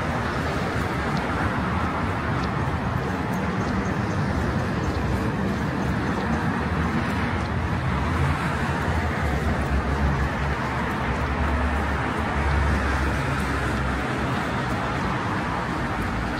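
Steady road traffic noise: cars driving along a busy city avenue, a continuous mix of engine and tyre noise with no single vehicle standing out.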